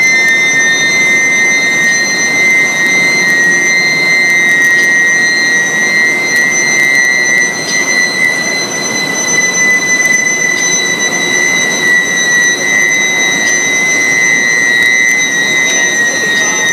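Square-steel induction heating furnace running: a loud, steady high-pitched whine with overtones, its pitch drifting slightly, over a continuous rushing machine noise.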